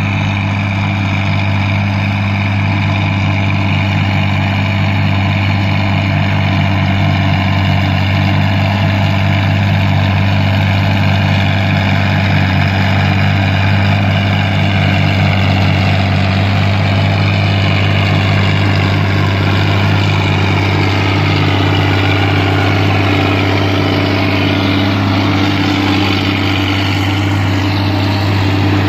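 John Deere 4430's turbocharged six-cylinder diesel running steadily under load, driving a John Deere 3950 forage chopper chopping corn for silage.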